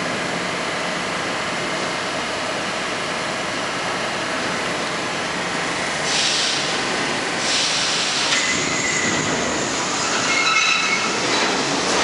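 R42 subway train pulling out of the station and picking up speed. A steady rumble, then hissing about six and seven and a half seconds in, and several high squealing tones from the wheels near the end.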